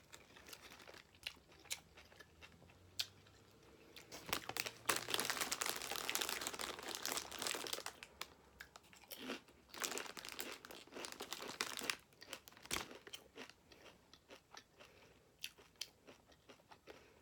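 Close-miked chewing of a Subway BMT sandwich, with many sharp mouth clicks and smacks. There is a longer stretch of louder, denser crunching from about four to eight seconds in, and another from about ten to twelve seconds.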